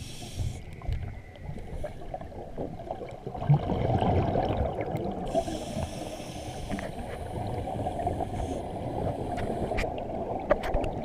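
Scuba diver breathing on a regulator, heard underwater through a camera housing: a muffled bubbling rumble of exhaled air with scattered small clicks, and a hissing intake of breath at the very start and again about five seconds in.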